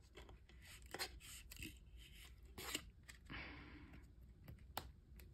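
Faint handling of a stack of plastic-sleeved photocards being squeezed into a tight kraft-cardboard box: sleeves and card rubbing, with a few sharp clicks and a short scrape about three and a half seconds in.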